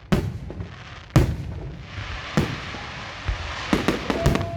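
Fireworks display: aerial shells bursting with sharp booms about a second apart, a crackling hiss between them, and a quick run of bangs near the end. A steady whistling tone starts just before the end.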